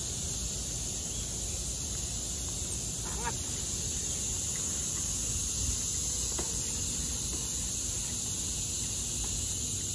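Steady high-pitched chorus of crickets chirring in the trees over a low rumble, with a short wavering bird call about three seconds in.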